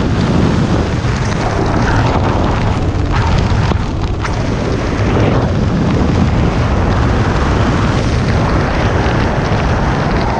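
Wind buffeting the microphone of a skydiver's camera while descending under an open parachute: a loud, steady rush of air, heaviest in the low range.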